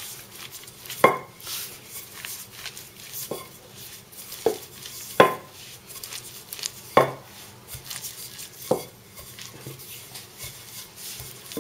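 Wooden rolling pin rolling scallion pancake dough flat on a floured wooden board: a soft rubbing, broken by about six sharp knocks of the wood, irregularly spaced a second or two apart.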